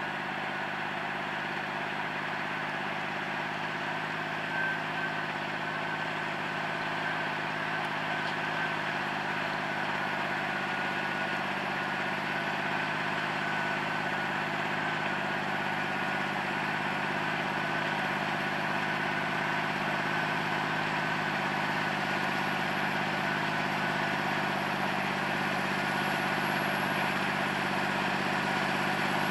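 John Deere 8200 tractor's diesel engine running steadily while pulling a plough, with a steady whine above the engine hum; it grows slowly louder as the tractor comes closer.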